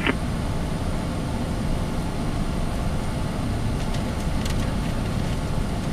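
Steady cockpit noise of a Cessna 680 Citation Sovereign business jet on approach: an even rush of airflow and the hum of its twin turbofans.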